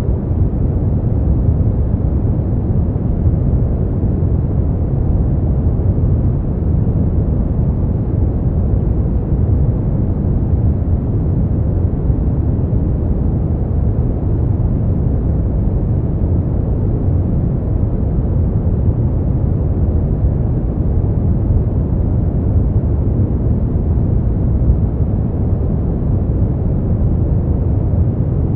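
Steady brown noise: a constant, even rumble weighted toward the low end, with little above the midrange and no changes.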